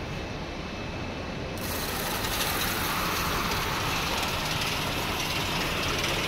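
Bag-packaging machine with heated vertical and horizontal sealers running just after being started: a steady mechanical running noise, with a hiss joining about one and a half seconds in.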